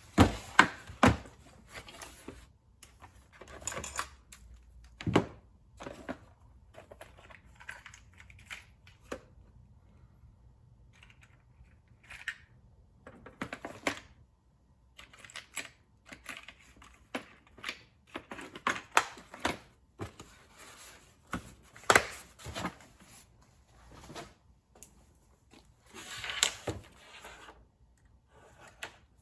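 Irregular clicks, knocks and rustling of things being handled and set down on a workbench, with the sharpest knocks in the first second and about 22 seconds in. No steady rotary-tool whine is heard.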